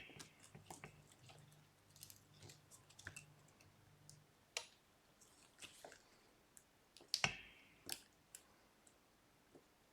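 Faint, irregular small clicks and taps of fingers and a tool on an iPhone 12's flex cable connectors as they are pressed back onto the board, with a louder pair of clicks about seven seconds in.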